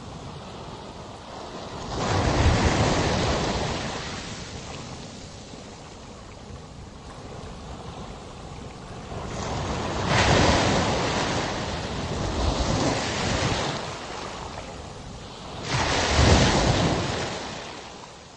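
Sea waves breaking and washing in: a steady rushing hiss that swells loudly three times, about two seconds in, about ten seconds in and near the end, then dies away.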